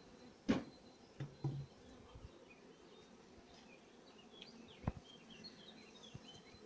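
Honeybees humming around an open hive, with a few sharp knocks of wooden frames against the hive box as frames are moved: the sharpest about half a second in, a small cluster after a second, and one more near five seconds. Faint bird chirps in the second half.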